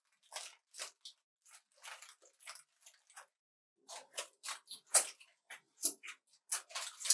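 Close-miked eating of a fried chicken burger: a run of short, sharp crunches from biting and chewing, sparse at first and coming thicker about four seconds in, the loudest crunch at about five seconds.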